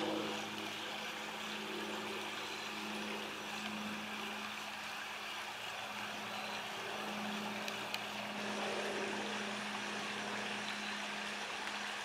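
Locomotive running steadily: a constant low hum that holds one pitch throughout.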